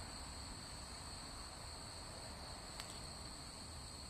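Faint background hiss with a steady, unbroken high-pitched whine in two tones, and one soft click about three seconds in.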